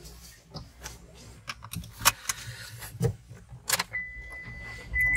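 Seat belt pulled across and buckled inside a Hyundai Grand i10, with clicks, rattles and keys jangling. About four seconds in, a steady high electronic tone from the car starts and keeps sounding.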